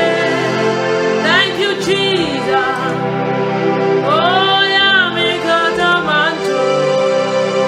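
A woman singing a slow gospel worship song, her voice swelling and gliding through long held notes, over a steady sustained instrumental backing.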